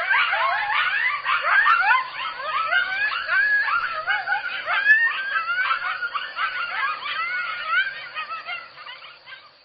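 A pack of jackals calling in chorus: many overlapping short, wavering cries that rise and fall in pitch. The chorus fades out near the end.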